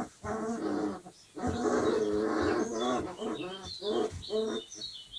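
Dogo Argentino puppies about 25 days old vocalizing as they play-fight: drawn-out squealing growls, the longest from about a second and a half in, then a run of shorter yaps and whines.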